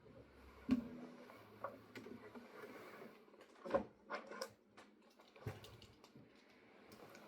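Faint handling noises: scattered clicks and soft knocks, with a louder knock about a second in and another near the middle, as things are moved about in a small room.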